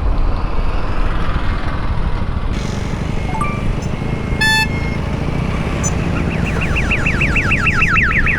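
Steady road and wind noise from riding a motorcycle. A vehicle horn toots briefly about four and a half seconds in, and a rapidly warbling electronic tone starts about six seconds in and repeats several times a second.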